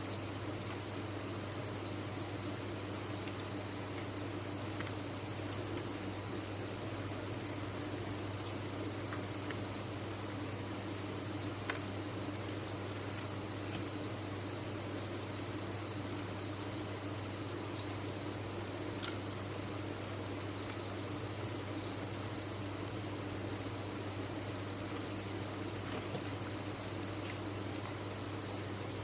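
A dense chorus of many farmed crickets chirping together, a steady high-pitched shrill with no breaks.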